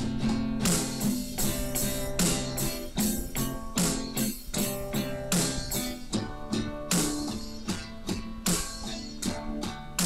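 Background music: guitars with a steady percussion beat.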